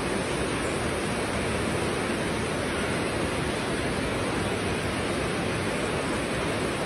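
A steady, even rushing hiss with no distinct events.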